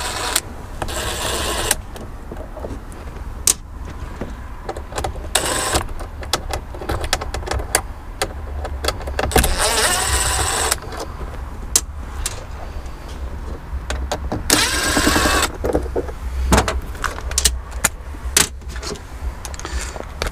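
Cordless drill running in four short bursts, about a second each or less, backing out screws, with clicks and clinks of the tool and screws between the runs.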